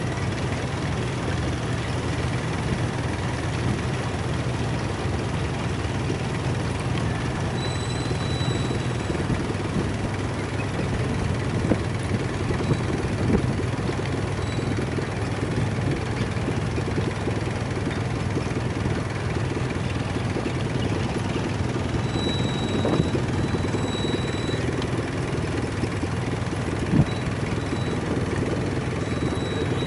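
Boat engine running steadily with an even low hum.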